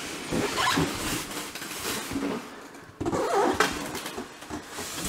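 Large cardboard box being pulled up and tipped off a boxed e-scooter, the cardboard scraping and rustling against the styrofoam packing blocks, with a sudden louder burst of scraping about three seconds in.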